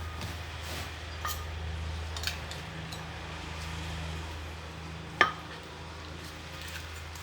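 Kitchen utensils clinking lightly as food is mixed, with one sharper ringing clink about five seconds in, over a steady low hum.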